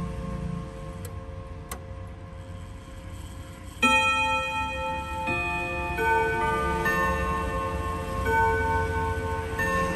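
ODO 62 ten-hammer chime clock playing its chime, its hammers striking the tuned gong rods. For the first few seconds the rods ring on and fade, with two light clicks. Then a loud strike about four seconds in starts a run of new notes, one every half second to a second, each left ringing over the next.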